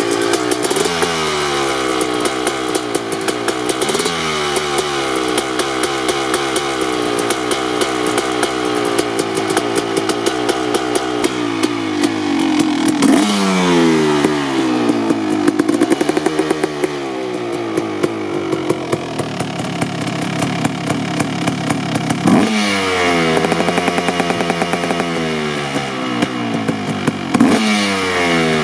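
2003 Kawasaki KX250 single-cylinder two-stroke dirt bike engine, fitted with an FMF Gnarly expansion pipe, being ridden hard: the revs climb and drop again and again through the gears, with quick sharp throttle blips about two-thirds of the way in and again near the end.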